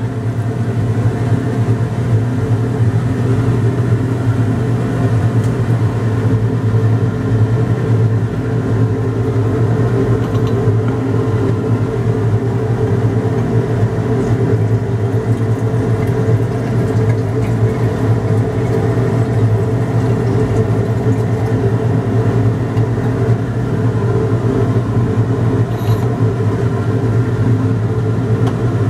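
Exhaust fan of a laboratory fume hood running with a steady low hum and rush of air, unchanging throughout.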